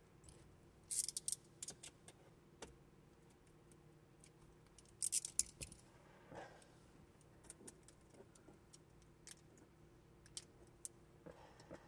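Old window tint film crackling and crinkling as it is slowly peeled off the windshield glass. There are two short crackly bursts, about one second in and about five seconds in, with scattered faint clicks between them.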